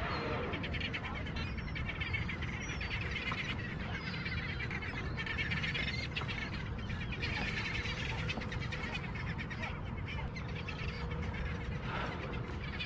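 A flock of seabirds calling over open water: a busy chatter of short, high chirping calls that keeps up throughout, over a steady low background of wind and water noise.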